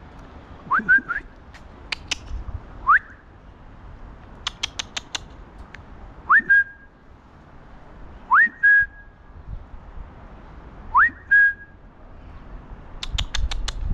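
Person whistling to call a cat: a rising whistle that lands on a short held note, repeated every two to three seconds. A quick run of sharp clicks comes a little before the middle and again near the end.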